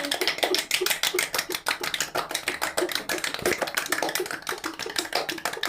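Scattered hand clapping from a small group: irregular claps, several a second.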